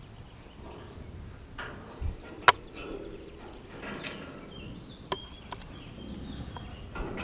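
Scattered clicks and knocks of movement and handling, with a low thump about two seconds in and the sharpest click just after it.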